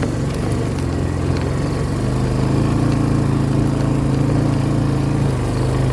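Vehicle engine running steadily while driving, its note rising a little about two seconds in as it picks up revs.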